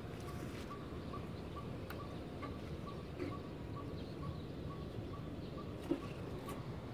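Steady low background noise with a faint, short chirp repeating evenly about two to three times a second, as from an insect or small bird. A light knock comes near the end.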